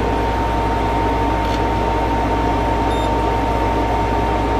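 Small air conditioner running on high cool, a steady drone of blower and compressor with a constant whine above a low hum, heard inside the cramped truck camper shell.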